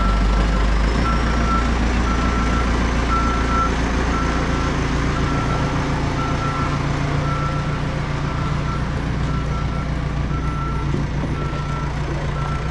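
A heavy machine's engine running steadily while its reversing alarm beeps at one pitch, about one and a half beeps a second, as it backs up.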